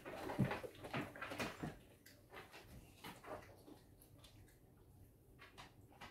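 Soft footsteps in trainers on the floor, a few steps in the first two seconds, then only faint taps.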